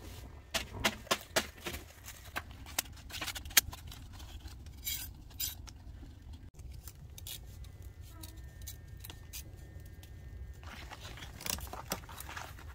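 Bamboo campfire burning with a low steady rumble, with sharp clicks and clinks over it: a quick run of them in the first few seconds and more near the end.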